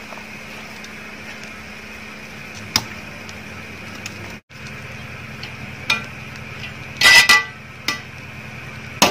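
Steady low background hum with a few soft clicks, then, about seven seconds in, a metal spoon briefly scraping and knocking against the side of a metal cooking pot as cooked rice is spread over the biryani layers.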